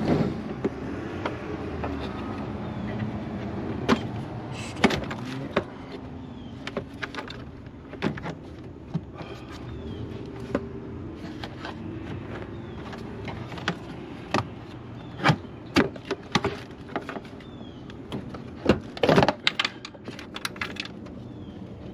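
Irregular clicks, knocks and clatter of hands and tools working the plastic engine-bay cover and its 10 mm bolts loose, the loudest knocks near the middle and about three seconds before the end.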